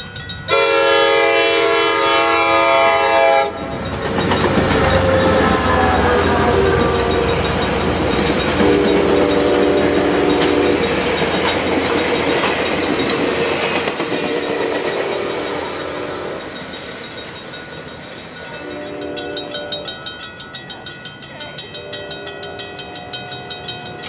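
An ACE commuter train's horn sounds a long blast, then the train goes by loudly, the horn's pitch dropping as it passes. Several shorter, fainter horn blasts follow as it pulls away, over a level-crossing bell dinging rapidly at the start and near the end.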